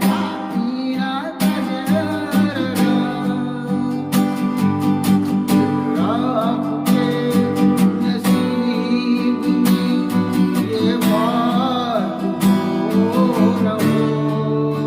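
Acoustic guitar strumming a slow six-beat dadra vilambit pattern with short melodic fills between the chords, while a voice hums or sings a wavering melody over it.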